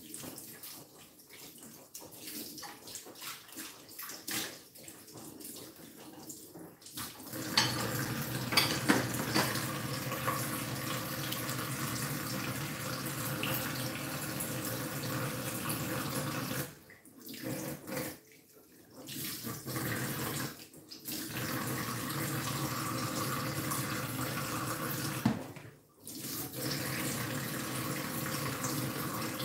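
Kitchen tap water running into a stainless steel sink during hand dishwashing: softer rinsing and washing sounds for the first several seconds, then the tap runs strongly and steadily, stopping briefly a few times.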